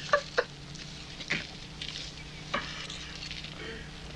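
Light clinks and scrapes of spoons and dishes, a few sharp taps with a brief ring, over a steady low hum.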